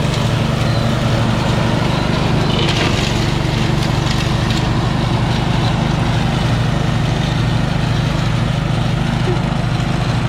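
Husqvarna LT130 ride-on lawn mower's engine running steadily.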